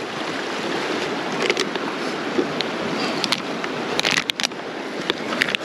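Small high-gradient stream rushing steadily, with several short, sharp clicks of something being handled, most of them in the second half.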